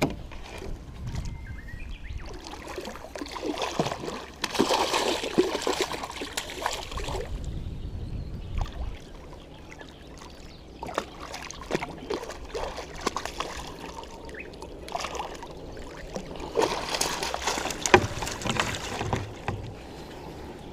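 Water splashing and sloshing against a small float boat, in two busy spells with a quieter stretch of lapping between them.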